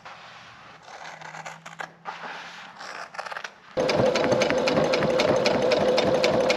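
Scissors snipping through tent canvas fabric, then a little under four seconds in a sewing machine starts and runs steadily, its needle ticking rapidly as it stitches the canvas.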